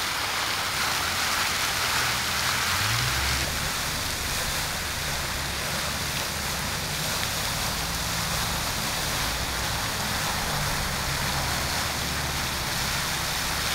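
Fountain jet spraying and splashing into its basin, a steady rush of falling water. From about three seconds in, road traffic rumbles underneath it, one engine rising in pitch as it pulls away.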